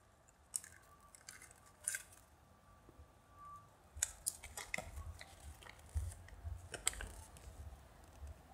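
A few sharp plastic clicks as a gashapon capsule is pried open, then from about four seconds in a run of crisp crinkling as the folded paper leaflet from inside is unfolded.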